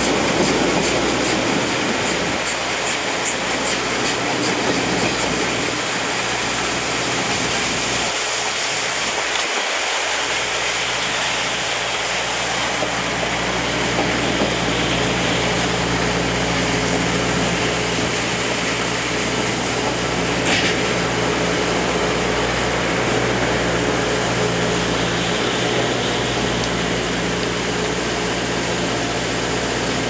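Running noise of a steam-hauled passenger train heard from inside a coach: a steady rumble of wheels on rail, with rail-joint clicks in the first few seconds. A steady low hum comes in from about halfway, and there is a brief high squeak about two-thirds of the way in.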